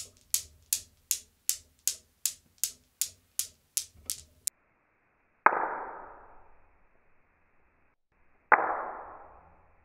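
Steel balls of a Newton's cradle clacking in a quick, even rhythm of nearly three clicks a second as the swinging balls strike the row. The clicking stops abruptly partway through. Then come two single sharp clacks about three seconds apart, each trailing off in a long ringing fade.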